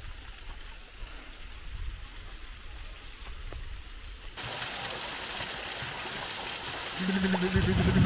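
Steady rushing of the Samodivsko Praskalo waterfall, which becomes louder and hissier suddenly about four seconds in. A low steady tone comes in near the end.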